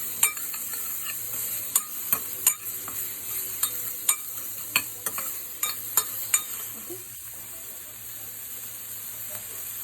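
Chicken and garlic sizzling in hot oil in a pan while being stirred, with sharp clicks of the stirring utensil against the pan. The clicks stop about two-thirds of the way through, leaving the steady sizzle.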